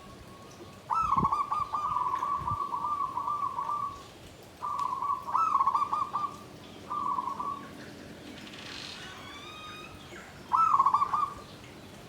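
Zebra dove (perkutut) cooing its rapid, trilled song in four phrases: one long phrase, then two shorter ones, and a brief one near the end, with gaps between them. Fainter, higher chirps of other small birds come in between the phrases.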